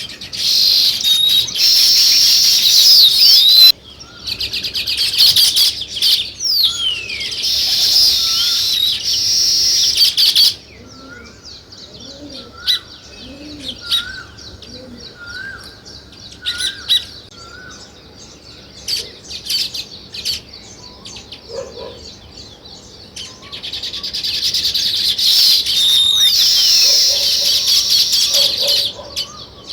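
A flock of small songbirds chirping. Long, loud bouts of dense, high chattering fill the first ten seconds and return from about twenty-four seconds in. In the quieter stretch between them there are scattered single short chirps.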